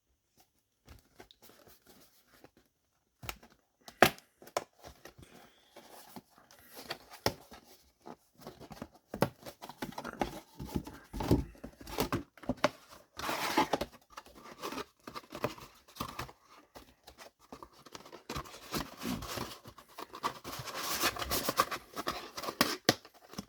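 A cardboard trading-card display box being unwrapped and opened by hand: irregular tearing, crinkling and tapping of packaging, with a sharp knock about four seconds in and denser rustling through the second half.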